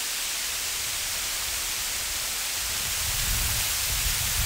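Waterfall: water falling down a high rock face and splashing into a pool, heard as a steady rushing hiss.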